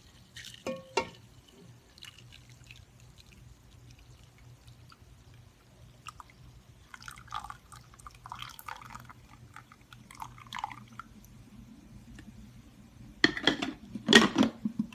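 Hot brewed Thai tea poured from a coffee maker's pot into a big bowl, trickling and splashing. There are a few light knocks about a second in and louder clattering of dishware near the end.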